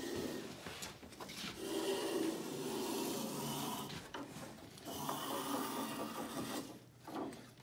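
Small thumb plane shaving cedar: about three rasping strokes along the edge of a canoe strip, with short pauses between, as a light bevel is cut so the strip seats tight against the next one without a gap at the seam.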